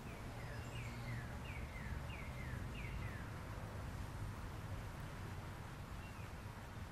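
A songbird singing a rapid series of short notes that fall in pitch, about five quick pairs in the first three seconds, then one more near the end. A steady low rumble of outdoor background noise runs underneath.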